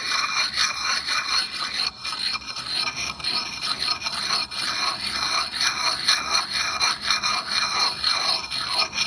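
A sharpening stone rubbed in circular strokes against an axe's edge: a continuous gritty scraping that swells and fades with each stroke.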